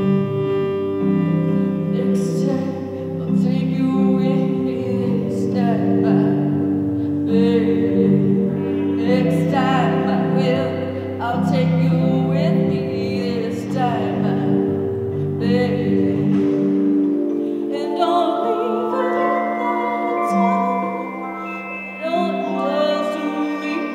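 Hand-pumped harmonium playing sustained chords over a low drone, with a woman singing along in long, wavering notes. The low drone drops out about two-thirds of the way through, leaving higher held notes.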